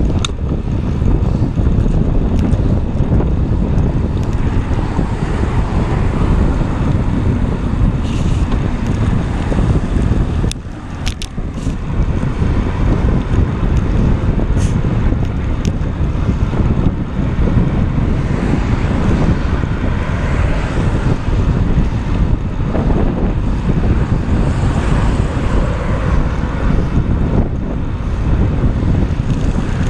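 Wind buffeting the microphone of a camera on a moving bicycle, a steady low rumble that briefly drops away about ten seconds in.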